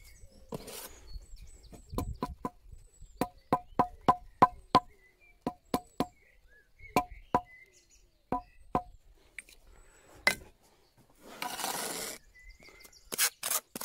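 Trowel tapping a walling stone down into its mortar bed as it is levelled: a run of sharp, ringing taps, several a second, some in quick clusters. A brief scrape comes near the end.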